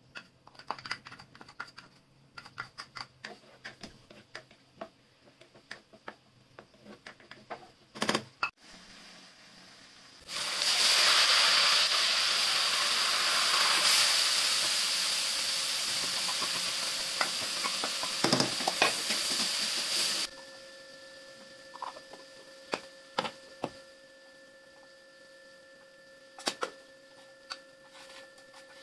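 Chopped onions and chana daal frying in hot oil in a wok, with a metal spoon stirring and clicking against the pan. About ten seconds in, a loud sizzling hiss starts as the daal fries; it lasts about ten seconds and cuts off suddenly, leaving quieter spoon clicks over a faint steady tone.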